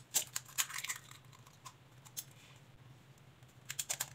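Eggs being cracked into a glass bowl: a few sharp clicks of eggshell against the glass rim and shell breaking in the first second, then a quick cluster of taps and cracks near the end as the second egg is broken open.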